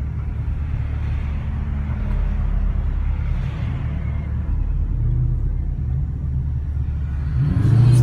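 Dodge muscle-car V8 engine idling with a deep, steady rumble, heard from inside the cabin. Near the end an engine revs up, its pitch rising and growing louder, as the cars pull away.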